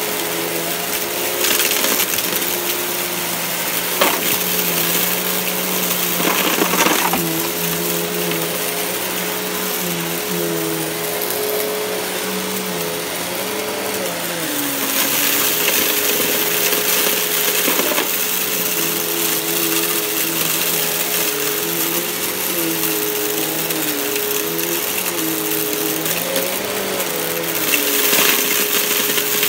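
Riccar bagged upright vacuum cleaner running on carpet, a steady rushing hiss over a motor hum whose lower pitch wavers up and down as the head is worked back and forth. Now and then grit clicks and rattles as it is sucked up.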